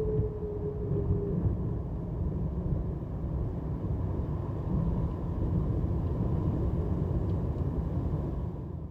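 The last of an outdoor tornado warning siren winding down, a low tone sliding slowly lower and dying away about a second in, under a heavy rumble of wind buffeting the microphone.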